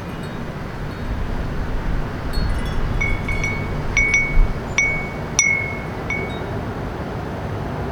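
Small wind chime stirred by a breeze, ringing with about half a dozen clear strikes from about two seconds in until about six seconds in. Under it runs the steady low hum of the city.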